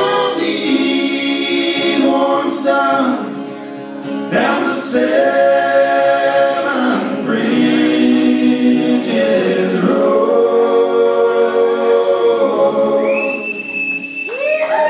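Male voices singing close vocal harmony, holding long chords that shift every second or two, with little or no instrumental backing heard. A higher note rises and is held near the end.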